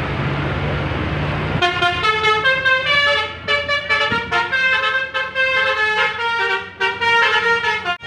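Coach's 'telolet basuri' multi-tone musical horn playing a quick tune of stepping notes, starting about a second and a half in, over the bus's engine running.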